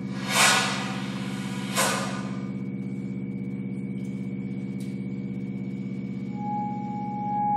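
Electroacoustic music for clarinet and tape: a steady low drone of several held tones with a fast pulsing flutter. Two short noisy swooshes come about half a second and two seconds in, and near the end a high held note enters and swells.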